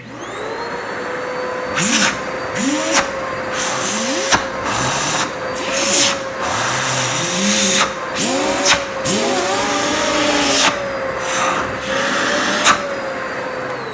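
Vacuum cleaner with a transplanted, more powerful motor, switched on to show its suction: it spins up within about a second to a steady high whine with a rush of air, and runs at full speed. Several short, loud bursts of noise cut through the run.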